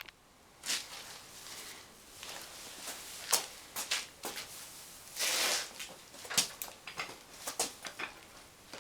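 Irregular knocks and taps, a dozen or so sharp strikes at uneven intervals, with a short rustling noise about five seconds in.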